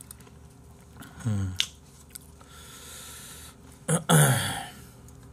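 Close-miked eating sounds of a person chewing boiled pork (bossam), with a short hum about a second in and a louder breathy vocal sound about four seconds in.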